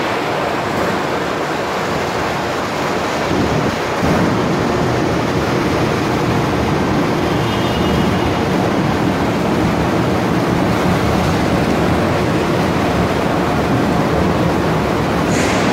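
Steady machinery noise from a running chevron-cleated rubber belt conveyor carrying waste cardboard sheets to the paper pulp system of a fiber cement board production line, with a faint brief whine about halfway through.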